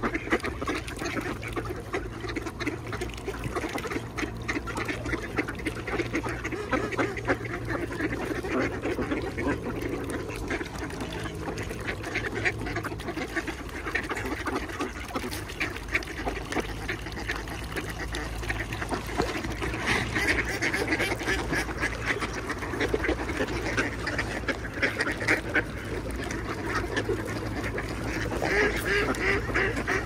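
A large flock of ducks quacking and calling over one another without a break, many birds at once, growing louder at times.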